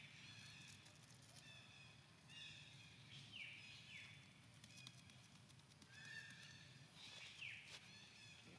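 Faint, high-pitched animal calls: a string of short squeaks, several of them sliding down in pitch, repeated about every second.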